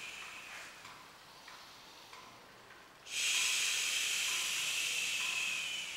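A long hissing exhale, breath pushed out through the teeth, starts suddenly about three seconds in and fades away near the end, after a quieter lull.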